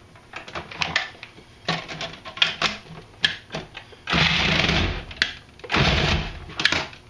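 Food processor run in two short pulses of about a second each, chopping fresh cranberries and raisins. Before them come light plastic clicks and knocks as fruit is dropped into the feed tube and the pusher is fitted.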